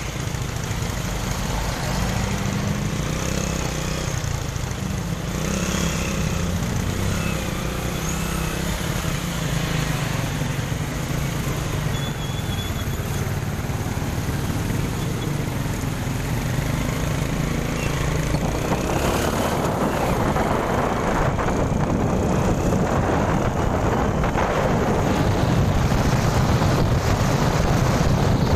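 Motorcycle engine running while being ridden, its pitch stepping up and down with the revs. About two-thirds through, wind rushing over the microphone grows louder and stays.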